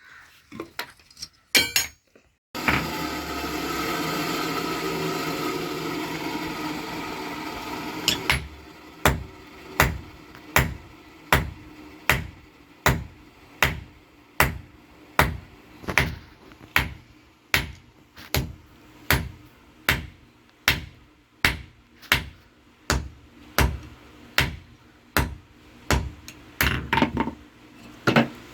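Blacksmith's hammer forging a steel reinforcing bar on an anvil, struck in an even rhythm of about three ringing blows every two seconds. The blows follow a few seconds of steady rushing noise.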